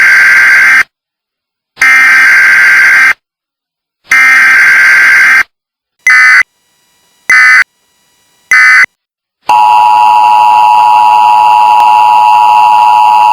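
Emergency Alert System tones. First come three long digital data bursts, each a harsh warbling between two high pitches, with gaps between them, then three short bursts. About nine and a half seconds in, the steady two-tone attention signal starts and holds.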